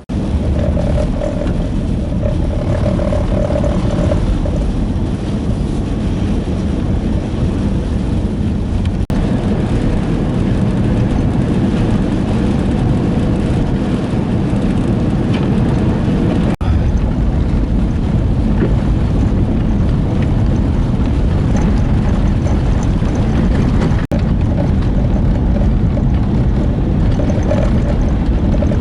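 Strong blizzard wind, a loud steady rush with a deep rumble, mixed with the running noise of a vehicle. The sound breaks off for an instant three times.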